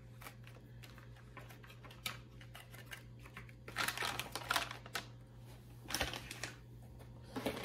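Plastic soft-bait packaging being handled, with brief rustles and light taps about four seconds in and again around six seconds, over a faint steady hum.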